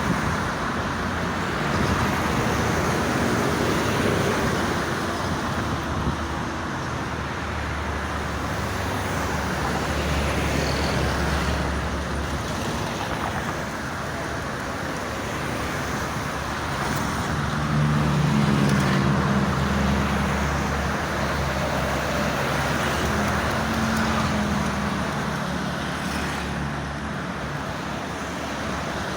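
Steady road traffic noise from the toll road. A passing vehicle's low engine drone swells to its loudest about two-thirds of the way through, then fades back into the traffic.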